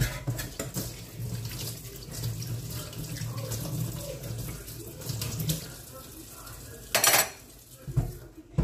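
Kitchen mixer tap running into a stainless steel sink while a utensil and hands are rinsed under it, with light clinks of cutlery. A short, loud burst of noise comes about seven seconds in, followed by a couple of thumps near the end.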